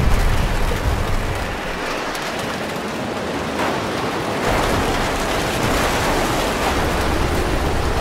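Heavy rain and wind lashing a car, heard from inside the cabin by a dashcam, as a tornado's storm sweeps over it. A low rumble of wind buffeting builds about halfway through.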